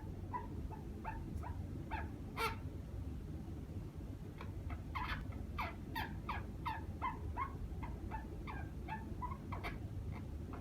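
A dozing pet conure's snoring: a long run of short, soft chirps, each dropping in pitch, about two or three a second, with a louder one now and then.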